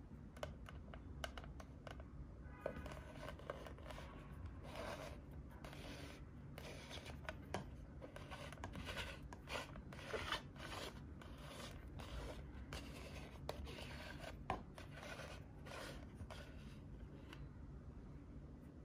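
Small plastic figure on a round plastic base, turned and shifted on a tabletop by hand: repeated soft scrapes and rubs with small clicks.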